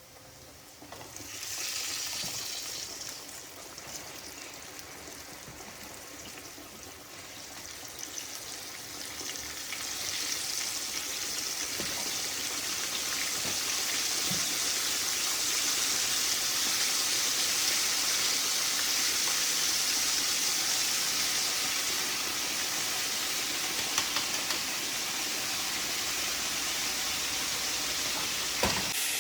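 Fish frying in hot oil, sizzling. The sizzle starts about a second and a half in, eases off, then grows louder and holds steady from about ten seconds in, with a few small pops near the end.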